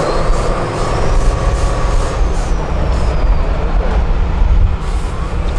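Diesel engine of an 8x8 Tatra trial truck running under load as it crawls up a steep sandy slope: a steady, heavy low rumble, with a faint high whine that rises and then falls over the first few seconds.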